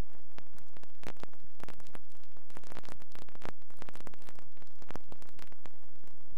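Steady static hiss with a low hum and irregular crackling clicks, the noise of an old home-movie transfer; no sound from the scene itself.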